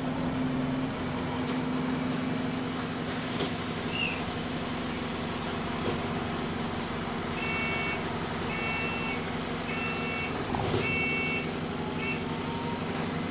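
Enviro400 MMC double-decker bus's diesel engine running steadily. In the second half, four two-tone electronic warning beeps sound about a second apart, with a short thud near the end.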